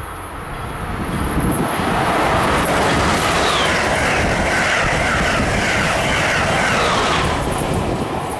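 A passenger train passing, its noise building over the first couple of seconds and then holding. Through the middle runs a series of high squeals, each sliding down in pitch.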